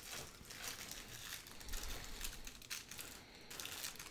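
Packaging crinkling and crackling in the hand as a small keychain is taken out and handled, a run of irregular soft crackles.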